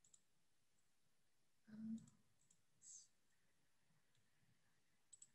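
Near silence with a few faint computer-mouse clicks near the start and just before the end, while a slide presentation is being set up for screen sharing. A short, faint voice-like sound comes about two seconds in, and a brief soft hiss about three seconds in.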